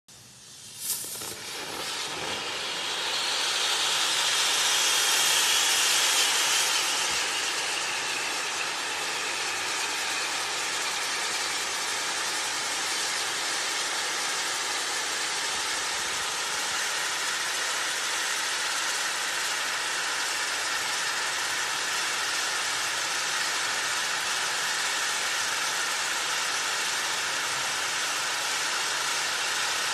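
Kimbolton Fireworks Colour Spinner Catherine wheel, 200 mm across, hissing as it spins. A sharp pop comes about a second in, then the hiss swells to its loudest around five seconds in and settles into a steady rush.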